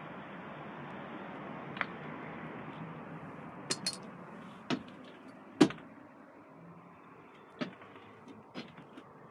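Scattered sharp knocks and clicks inside a campervan's body, the loudest a little past halfway, over a steady hiss that drops away in the second half.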